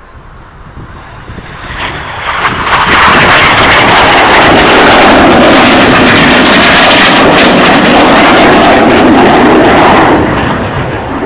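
Two BAE Systems Hawk jets, each powered by a Rolls-Royce Turbomeca Adour turbofan, making a low pass at about 100 feet. The jet noise swells over the first few seconds, stays very loud for about seven seconds, then begins to fade near the end.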